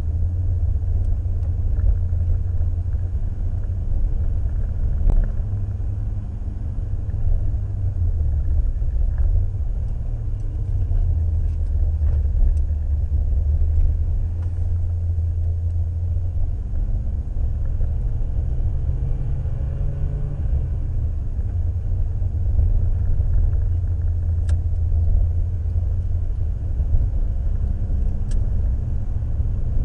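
Citroën Xantia being driven hard, heard from inside the cabin: a steady low rumble of engine and tyres, with the engine note rising and falling a few times as the car accelerates and eases off through the bends.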